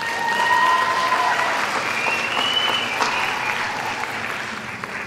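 Audience applauding for a graduate, with a few long, held high cheers over the clapping in the first few seconds. The applause dies down near the end.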